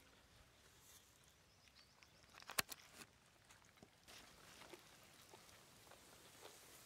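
Near silence with faint outdoor background and a few soft clicks and ticks, one sharp click about two and a half seconds in.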